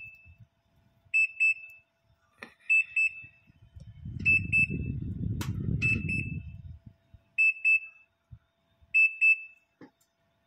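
Electric oven's timer beeping: bursts of three or four quick high beeps repeating about every second and a half, signalling that the set baking time is up. A low muffled noise runs under the beeps for a couple of seconds midway.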